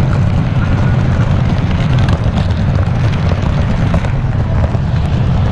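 Model train running fast along the track, heard from a camera riding on it: a loud, steady low rumble with light scattered clicking.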